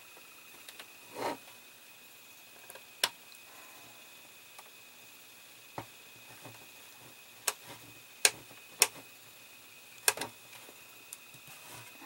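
Small screwdriver driving tiny screws into a model car's floor panel: irregular sharp clicks of the tip and screws, about seven, with a softer scrape about a second in.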